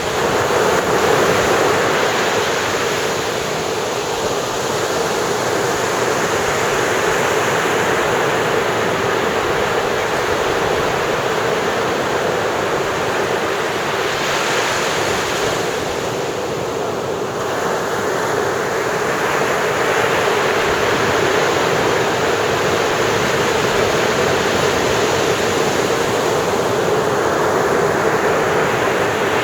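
Ocean surf breaking on the beach: a continuous wash of waves rolling in and drawing back, swelling and easing in slow surges.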